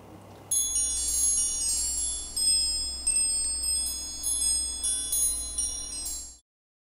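High, bright chimes struck again and again, each ringing on, over a low steady hum. They start about half a second in and cut off suddenly near the end.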